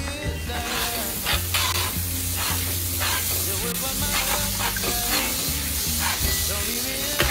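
Pork sisig sizzling in a hot frying pan, with crackles and a steady hiss, while butter goes into a second hot pan. Background music with a melody plays over it.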